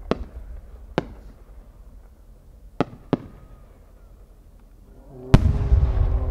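An 8-go (about 24 cm) warimono firework shell: a few sharp cracks while it climbs, then, about five seconds in, the loud boom of its burst, rumbling and echoing on.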